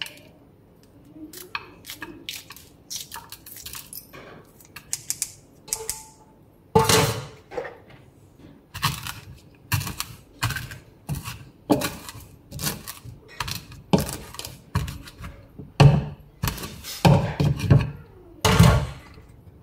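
Repeated knocks and thuds while food is being prepared. Light clicks and taps come in the first few seconds, then heavy thumps follow at roughly one a second from about seven seconds in.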